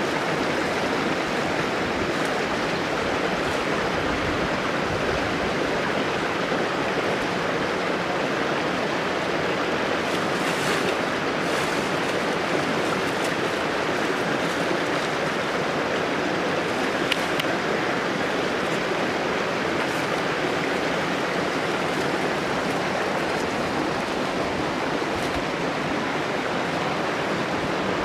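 Steady rushing of running water, unbroken and even throughout, with a few faint ticks.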